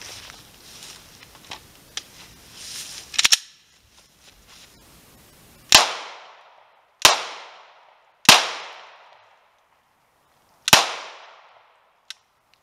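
Glock 17 Gen 4 9mm pistol firing four shots of old British Mk2z Sterling submachine-gun ammunition. The shots come about a second and a half apart, with a longer pause before the last, and each one rings off in echo. Before the shots there are a few clacks, the loudest a sharp double clack about three seconds in, and a faint click comes near the end.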